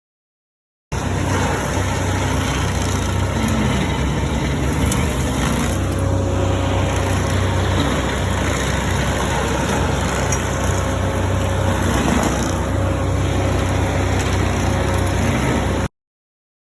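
Stump grinder running steadily, its engine droning under the dense noise of the cutter wheel chewing into an evergreen's stump; it starts abruptly about a second in and cuts off suddenly near the end.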